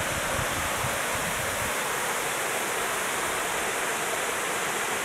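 Steady rushing of water spilling over a dam and churning in the gorge below.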